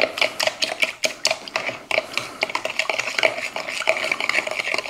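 A whisk beating eggs, sugar and salt in a cup, its wires clicking against the sides in quick strokes, several a second. This is the sugar being stirred until it dissolves.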